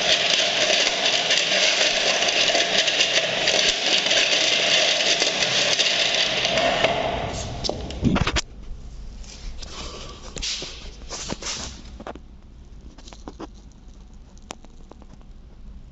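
A power tool's motor runs steadily, then is switched off about eight seconds in and winds down with a falling pitch. Light clicks and scrapes of handling follow.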